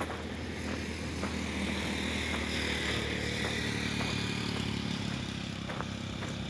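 A motor vehicle passing on the road, growing louder to a peak about two to three seconds in and then easing off. Footsteps on a gravel path tick along underneath, roughly once a second.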